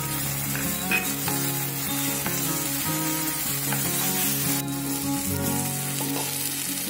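Thick onion and spice masala sizzling in oil in a non-stick wok while it is stirred and scraped with a wooden spatula, the paste being sautéed down (kosha) until nearly done. Soft background music plays underneath.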